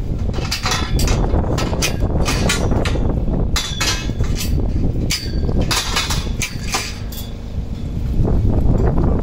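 Hammer blows and metallic clanks from greenhouse truss parts being assembled, an irregular series of sharp strikes, some ringing briefly, over a steady low rumble.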